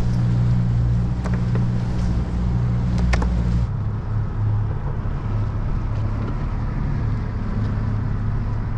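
A motor engine running steadily with a low hum. About three and a half seconds in, the hum shifts to a different pitch.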